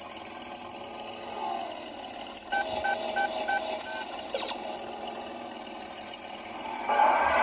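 Electronic sound effects from a 1/8-scale DeLorean time machine model's sound module: a steady hiss, then a run of five short beeps about three a second, a brief falling tone, and a louder steady rushing hum starting near the end.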